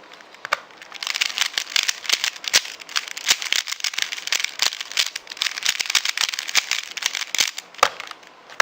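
3x3 Rubik's Cube being turned rapidly, its plastic layers clacking in a dense run of clicks that starts about a second in and lasts some seven seconds, with a few single clicks near the end.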